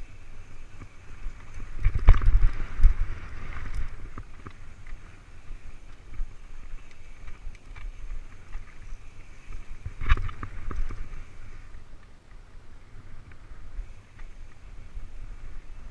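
Mountain bike riding down a rough dirt trail: steady wind rumble on the microphone and tyre and trail noise, with clusters of knocks and rattles as the bike jolts over bumps about two seconds in and again about ten seconds in.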